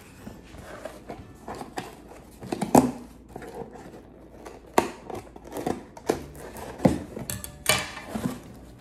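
Scissors snipping through string tied around a cardboard box, with hands handling the box between cuts: a series of sharp snips and clicks, the loudest about three seconds in.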